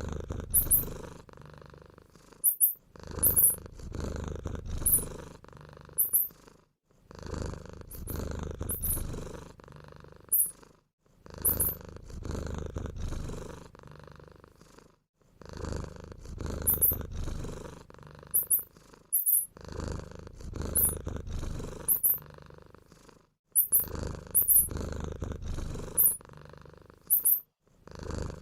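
Mouse squeaks, short very high chirps a few at a time, over a low purring rumble. The rumble comes in bursts of about three seconds with brief breaks and repeats throughout, like a looped track.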